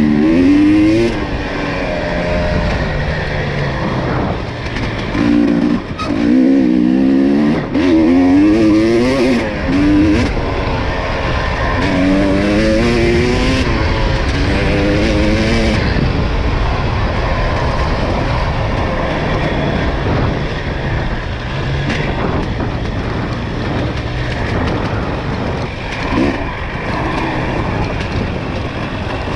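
ATV engine running under a rider, its revs rising and falling quickly again and again over the first half, then running more steadily at lower revs.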